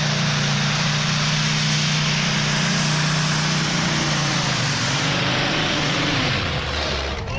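The twin Rolls-Royce Griffon V12 aero engines of a pulling tractor running at full power as it drags the sled down the track, a loud steady drone. The sound eases off from about five seconds in as the pull ends.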